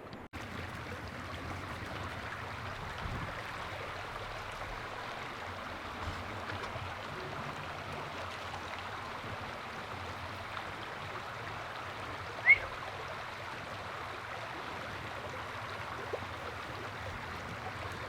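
Steady rushing of a stream of running water, with one short, sharp chirp about twelve seconds in.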